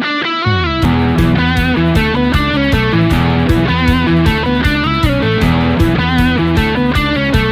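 Background music: an electric guitar rock instrumental with a lead guitar melody. Drums and bass guitar come in about a second in.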